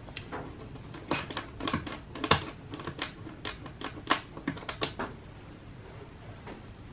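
Keys of a 1950s Olympia Deluxe typewriter being struck, its mechanism freshly lubricated: a quick, irregular run of about twenty sharp clacks that stops about five seconds in, then one faint clack near the end.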